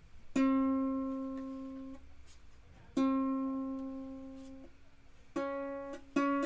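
Kala KA-TEM mahogany tenor ukulele being tuned: one string with new Aquila strings plucked four times, each note ringing and fading before the next, with the pitch adjusted slightly between plucks.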